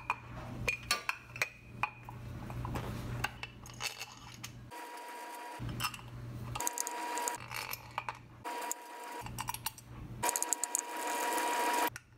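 Small metallic clicks and taps as steel screws are fitted by hand into a chrome motorcycle oil filter cover, clustered in the first few seconds. Later come quieter rubbing and handling sounds, with a faint steady tone that comes and goes and a louder stretch of scraping noise near the end.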